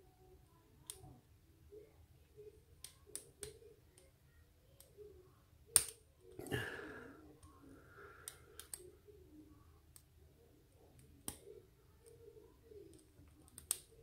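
Light metallic clicks and ticks of a lock pick and tension wrench working the pins of a 5-pin Master Lock padlock, scattered and irregular, with a sharper click about six seconds in and another about eleven seconds in.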